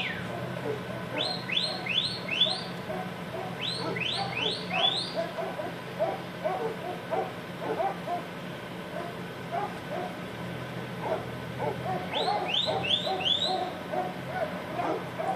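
A large flock of sheep bleating and milling on the road, many overlapping calls at once, over the low steady hum of an idling car engine. Three runs of three or four quick, high, rising whistle-like calls cut through: about a second in, about four seconds in, and near the end.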